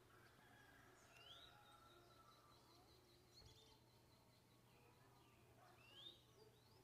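Saffron finch calling faintly: a short rising note about a second in and another near the end, with thin high chirps between.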